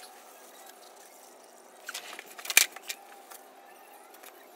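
Used engine oil mixed with engine flush draining in a thin stream from the oil pan into a plastic drain pan. A cluster of clinks and knocks comes about two to three seconds in, the loudest a sharp knock about halfway.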